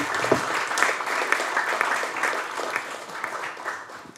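Audience applauding at the end of a talk, a steady patter of many hands clapping that fades out near the end.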